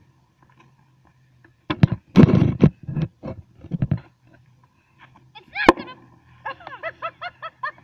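A sealed plastic bag, swollen with gas from the fizzing mixture inside, pops open at the top about two seconds in with a short loud rush of escaping gas. A single sharp crack follows a few seconds later, then a quick run of short high chirps.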